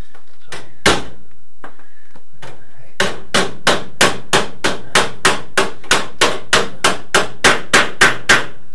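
Hand hammer striking the sheet metal of an Aston Martin DBS V8's outer sill: a few separate blows, then a steady run of about three blows a second for some five seconds.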